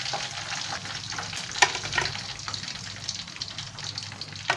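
Hot cooking oil sizzling and crackling steadily as fried chicken pieces are lifted out of the wok, with two sharp clacks of the metal slotted spatula, one about one and a half seconds in and one near the end.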